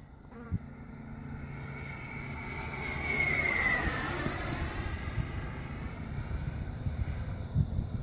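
Electric ducted-fan jet (E-flite Havoc, stock 80mm fan motor with a Wemotec EVO rotor) flying past: its high whine grows louder, peaks about halfway through, then drops in pitch as it passes. Wind buffets the microphone near the end.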